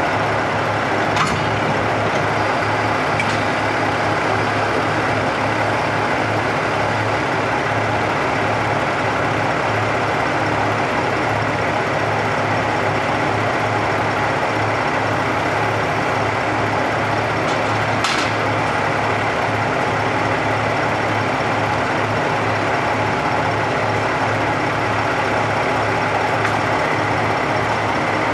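KiHa 11 diesel railcars idling at standstill: a steady engine hum with a low pulsing throb. A few brief sharp clicks, the clearest about 18 seconds in.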